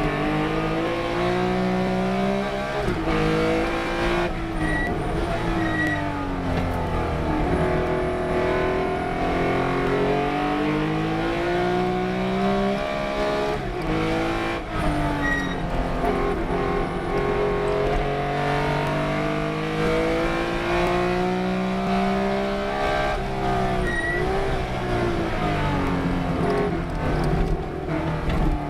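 Race car engine under hard acceleration and lifting off for corners and gear changes, its pitch climbing and dropping back again and again.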